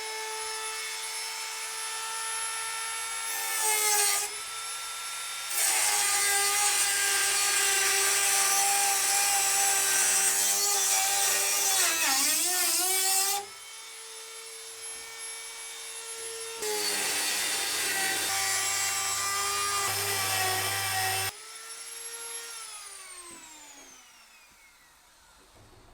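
Dremel rotary tool spinning up to a steady high whine and cutting through a metal van cross member: a short bite, then two long cuts with a harsh grinding hiss over the whine, the pitch sagging briefly under load. Near the end the tool is switched off and the whine falls away as it spins down.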